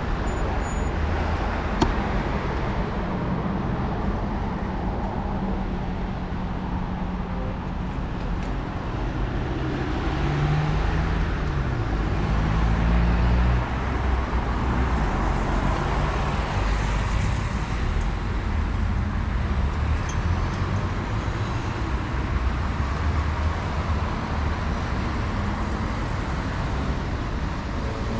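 Road traffic noise heard while cycling: cars and other motor vehicles running past. An engine hum swells about ten seconds in and drops off abruptly a few seconds later.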